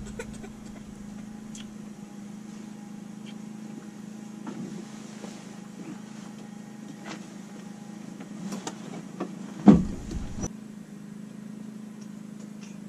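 A steady low hum with scattered light clicks and knocks, and one heavy thump about ten seconds in.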